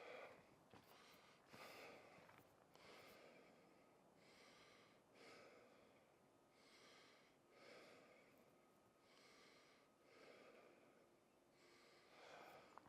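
Near silence, with faint, regular breathing close to the microphone, a soft breath every second or so.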